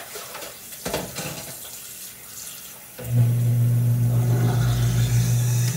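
Kitchen sink faucet water running, with a knock about a second in. About three seconds in, a loud steady low hum starts suddenly and holds until just before the end.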